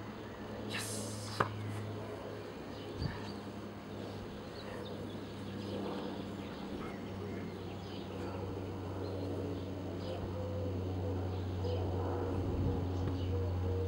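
Quiet outdoor ambience: a steady low hum with faint high chirps scattered through it, and a sharp click about a second and a half in.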